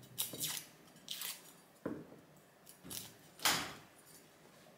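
A red onion being cut up with a kitchen knife: about six short, crisp crackling cuts and skin tears, with a knock on the cutting board about two seconds in and the loudest crackle about three and a half seconds in.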